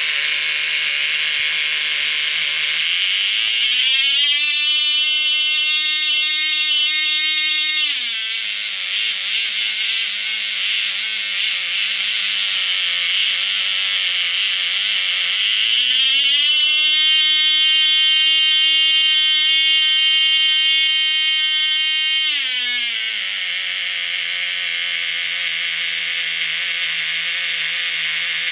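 Cox Medallion .051 glow-fuel model engine running on its RC carburettor, opened up twice from a low idle to a painfully high-pitched whine and held several seconds at full throttle each time before dropping back to idle.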